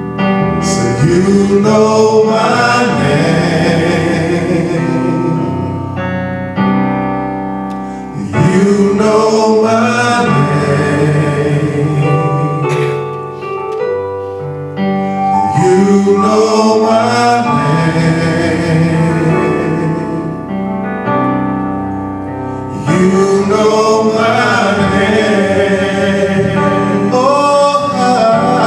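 Male vocal quartet singing a gospel song in harmony through hand-held microphones, in four long phrases of several seconds each.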